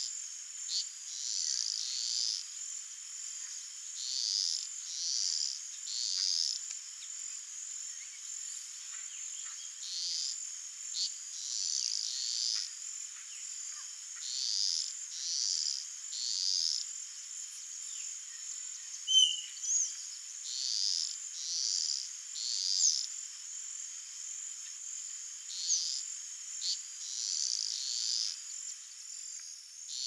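Wild animal chorus: pulsed calls coming in groups of three, every four to five seconds, over a steady high-pitched insect drone. A short sharp chirp stands out about two-thirds of the way through.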